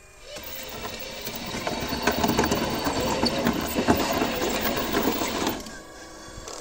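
Radio-controlled model hydraulic excavator (Herrlieb 946) working: its pump and drive motors whirring with a fast gear rattle as the upper body swings round. The whirring builds for about two seconds and cuts off about five and a half seconds in.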